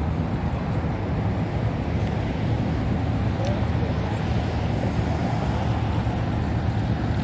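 Steady low engine rumble with outdoor traffic-like noise, unbroken throughout.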